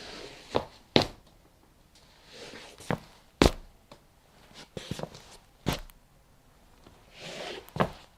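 Slow, shuffling footsteps: the feet drag and scrape along the floor between sharp, unevenly spaced heel strikes, about eight steps in all.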